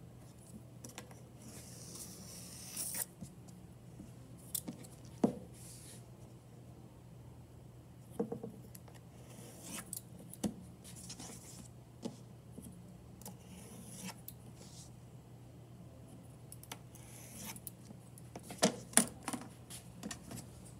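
A potter's knife scraping through a soft clay slab as it is drawn along a steel straightedge, in several short strokes, with sharp taps and clicks of the metal straightedge and knife against the work table, the loudest tap about five seconds in and a few clicks near the end. A steady low hum runs underneath.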